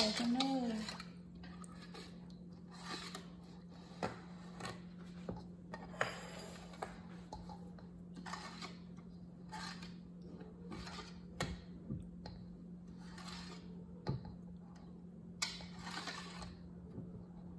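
Wire whisk stirring liquid batter in a large stainless steel mixing bowl: irregular scrapes and light clinks of the wires against the metal. A steady low hum runs underneath.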